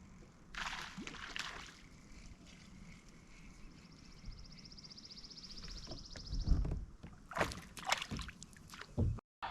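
Kayak paddle strokes dipping and splashing in river water, with a high, steady buzz for a few seconds in the middle.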